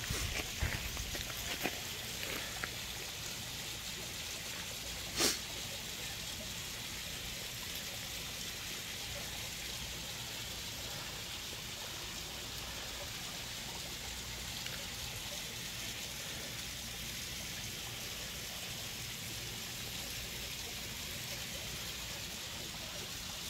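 Steady outdoor rushing hiss like running water, with a few light clicks in the first three seconds and one sharp click about five seconds in.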